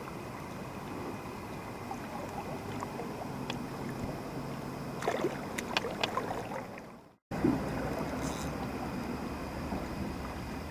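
Steady rush of a small river's current running through a shallow run, with a few short sharp clicks or knocks a few seconds in. The sound drops out completely for a moment about seven seconds in, then the water resumes.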